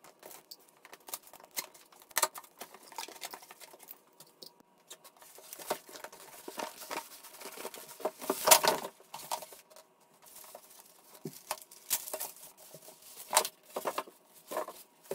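Monitor packaging being handled: a cardboard box opened and styrofoam end blocks and plastic wrap pulled out. Irregular rustling, crinkling and scraping with scattered knocks, the loudest about eight and a half seconds in.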